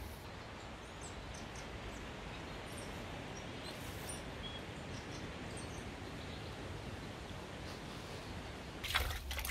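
Steady outdoor bush ambience, an even background hiss with a few faint, short bird chirps. Near the end a burst of rustling and clicks starts up.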